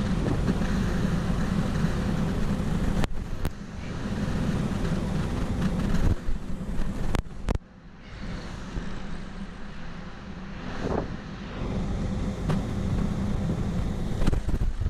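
Wind rumbling on the microphone in the open air over the sea, with a few sharp clicks or knocks about three seconds and seven seconds in.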